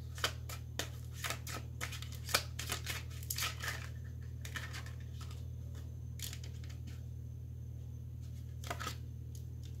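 A tarot deck being shuffled by hand: a quick run of crisp card slaps and flicks for the first few seconds, then only a few single card sounds, over a steady low hum.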